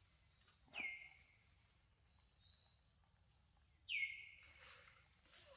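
A bird calling twice, about three seconds apart: each call is a high whistle that drops quickly in pitch and then holds briefly on a steady note, with fainter short chirps in between.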